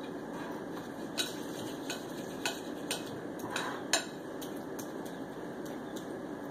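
A fork mashing and stirring softened cream cheese and butter in a bowl, with several sharp clinks of the fork against the bowl over a steady background hum.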